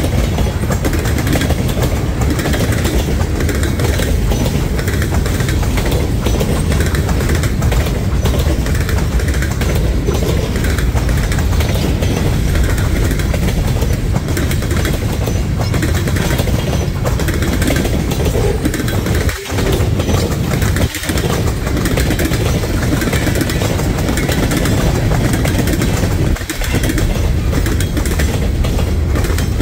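Freight cars rolling past on the rail, tank cars and then high-sided woodchip cars, making a steady loud rumble of wheels on track. The rumble dips briefly three times in the second half.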